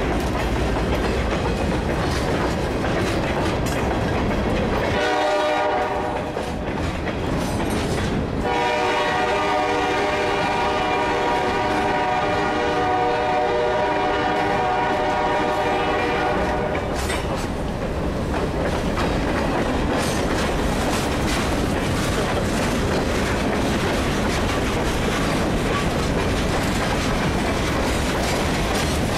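Freight cars rolling past, with steady rumble and the clickety-clack of wheels over rail joints. A locomotive horn chord sounds briefly about five seconds in, then is held from about eight seconds to about seventeen seconds.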